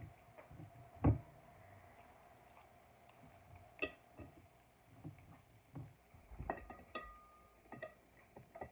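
Scattered light knocks, scrapes and clinks of a chopstick working peanut butter into a pine cone and against kitchenware, with one louder thump about a second in and a short ringing clink about seven seconds in.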